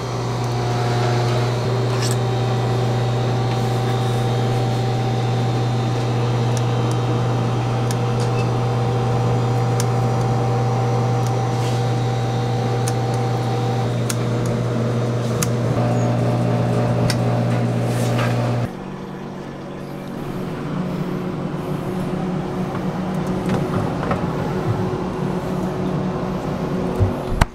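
Steady electric motor hum from a kitchen machine, with light clicks and clatter. The hum cuts off suddenly about two-thirds of the way through and gives way to a quieter, rougher machine hum.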